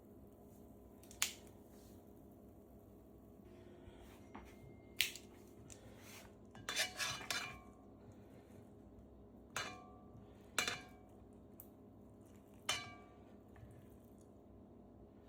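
Metal utensil clinking against a metal baking pan while chicken drumsticks are turned over: about six sharp, briefly ringing clinks, with a quick flurry of them about seven seconds in.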